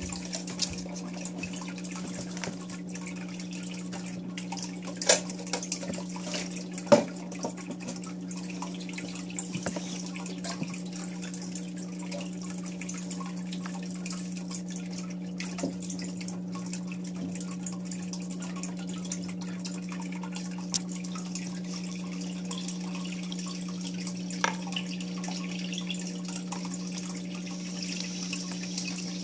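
Aquarium filter running: a steady low hum with water trickling and dripping, and a few sharp clicks or small splashes, the loudest about 5 and 7 seconds in.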